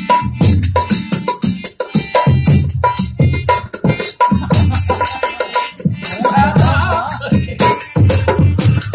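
Indian folk ensemble music: a barrel hand drum of the dholak kind plays a brisk, steady rhythm of about three to four strokes a second, over harmonium. A singing voice comes in briefly about six seconds in.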